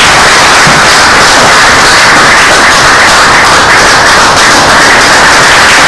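Loud, dense applause: many people clapping.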